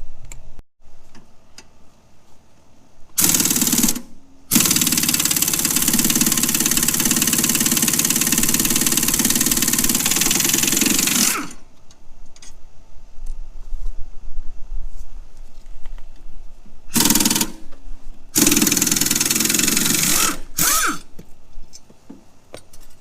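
Impact wrench hammering on tight mower blade bolts to break them loose, in several bursts: a short one, a long one of about seven seconds, then two shorter ones.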